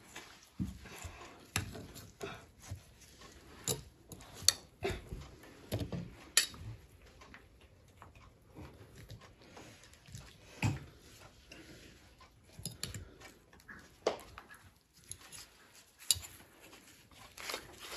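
Irregular knocks, clicks and scrapes of a dull kitchen knife working at the thick rind of a ripe fruit.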